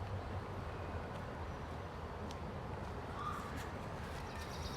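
A crow cawing over a steady low rumble of city background noise.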